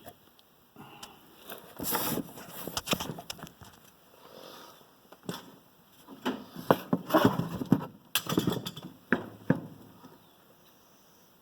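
Hand tools and small metal wheel parts being handled and set down: scattered clicks, knocks and rubbing in two busy spells, the second one longer.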